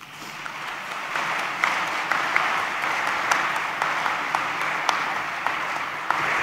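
Audience applauding, swelling in over the first second and then holding steady, with a few single sharp claps standing out from the mass of clapping.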